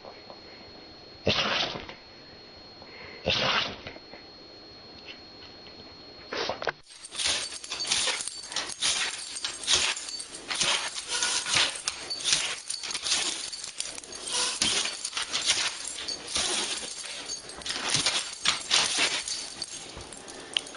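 Two short, loud sneezes, then a dog's long, rapid run of short, sharp barks and yips.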